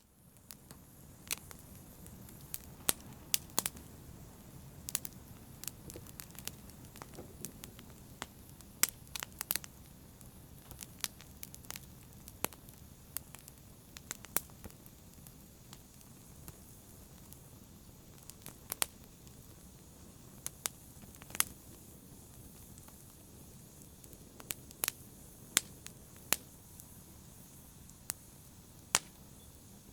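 Fire crackling: sharp, irregular pops and snaps over a low, steady rumble of burning.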